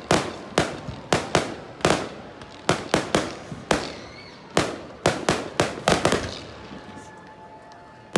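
Fireworks display: a quick run of sharp bangs from bursting aerial shells, each with a short echoing tail, coming two or three a second and thinning out for the last two seconds.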